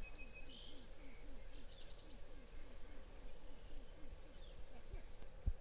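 Birds chirping and trilling in the first second or so, over a faint outdoor background with a low pulsing sound repeating about four times a second. A single dull thump near the end.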